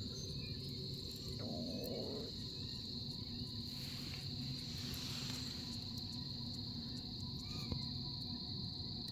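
Crickets trilling: one continuous, high, steady insect trill.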